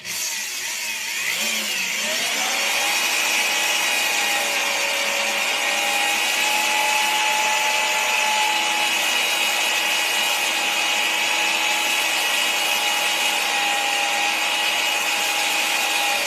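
Power drill boring a 3/4-inch hole into the wooden front of a workbench. The motor winds up over the first two seconds, then runs steadily under load, a constant whine over the noise of the bit cutting wood.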